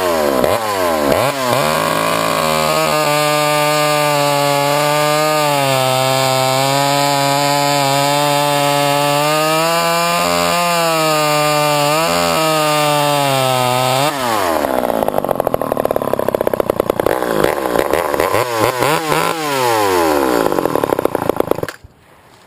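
Poulan two-stroke chainsaw revved up, then held at steady high revs for about twelve seconds. It drops back, is blipped up and down several times, and then shuts off abruptly near the end.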